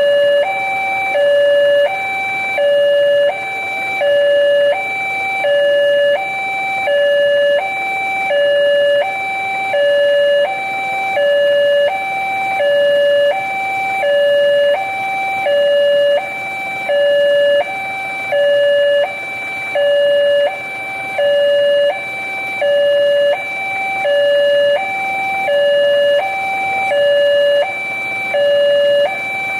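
Indonesian railway level-crossing warning alarm sounding from the loudspeaker on the signal post: an electronic two-tone alarm alternating evenly between a higher and a lower tone, switching about every three-quarters of a second, warning that a train is approaching with the barrier down.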